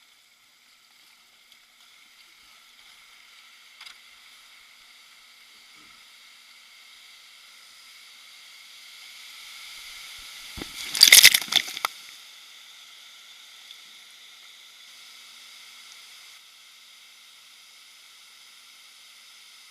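River water running over shallow rapids, a steady hiss that slowly grows louder, with a short burst of loud close splashing about eleven seconds in.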